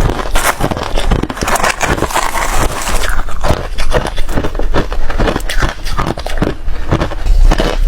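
Close-miked chewing of hard ice: a fast, irregular run of loud crunches and cracks as the cubes are bitten and ground between the teeth.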